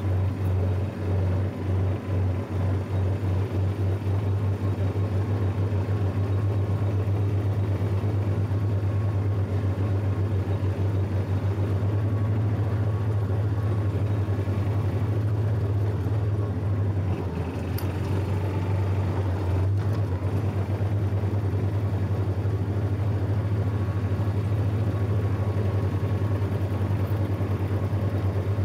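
Small engine of a John Deere garden tractor running close up while it drives across grass, pulsing unevenly for the first few seconds and then running steadily.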